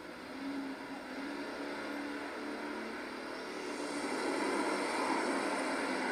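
Super stock pulling tractor's turbocharged diesel engine running with a steady note, then opening up to full throttle as the tractor launches down the track about four seconds in.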